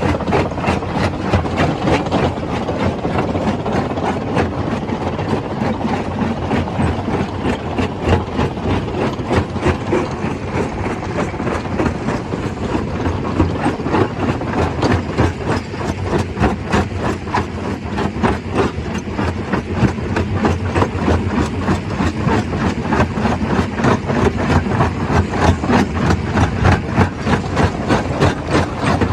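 Stone crusher running, a continuous dense clatter of rock being crushed and rattling through the machine over steady machinery noise.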